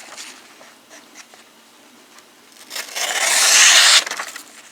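Folding knife blade slicing through a sheet of copy paper: a scratchy cutting sound about a second long near the end, stopping abruptly. The edge cuts with some drag, not real sharp out of the package.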